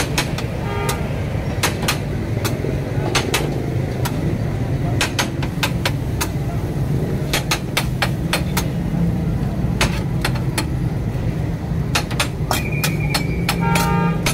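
Metal spatula striking a flat griddle in quick, irregular clanks, often two or three at a time, as shredded chicken and cabbage are chopped and turned, over a steady low hum.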